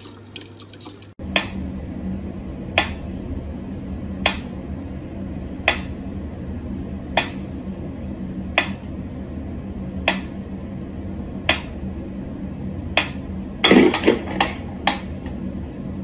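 Mechanical pyramid metronome ticking slowly, one sharp tick about every second and a half, nine ticks in all, over a steady low hum. Near the end there is a short cluster of knocks and clatter.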